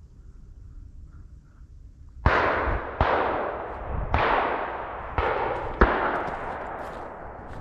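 Five gunshots fired in quick succession over about three and a half seconds, each one trailing off in a long rolling echo.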